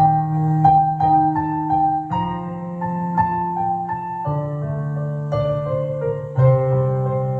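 Slow instrumental music: a piano-like keyboard plays a melody of single notes, changing about every half second, over long held bass notes.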